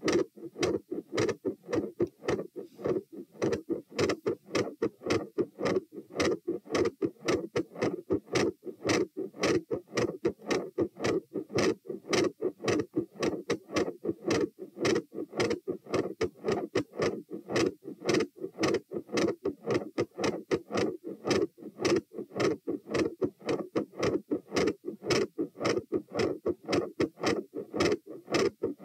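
Human heart sounds heard through a stethoscope at the tricuspid auscultation area: a fast, regular lub-dub of paired first and second heart sounds, beat after beat.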